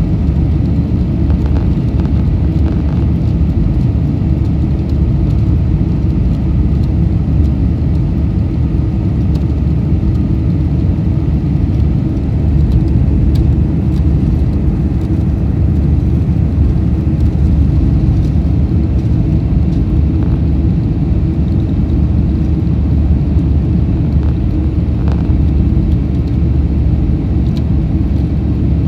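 Steady, loud, low rumble of cabin noise inside a Boeing 747-400 powered by four Pratt & Whitney PW4056 turbofans, with airflow and engine noise blended into an unchanging drone.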